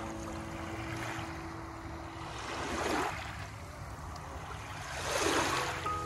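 Small, gentle waves lapping on a pebbly sand shore. Each wash swells up and ebbs away, coming every two to three seconds, with the loudest just before the end.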